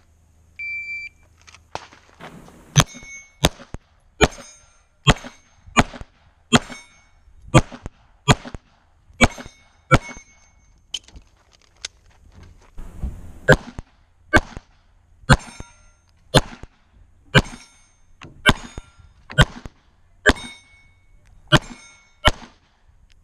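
An electronic shot timer beeps once, then a pistol fires about twenty shots at steel plates, about one a second, with many hits making the steel ring. The shooting pauses for about two seconds midway.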